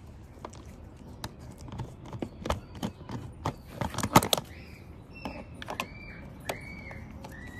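Screwdriver turning out screws from a car seat's plastic side trim: irregular clicks and scrapes of the bit in the screw heads and plastic, loudest about four seconds in. A few short high chirps follow in the second half.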